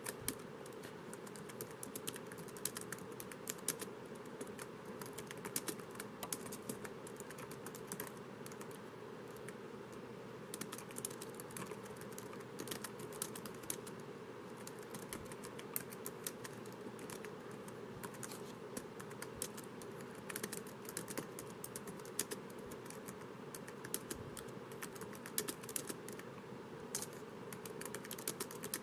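Typing on a laptop keyboard: quick runs of soft key clicks with short pauses between them, over a steady low hum.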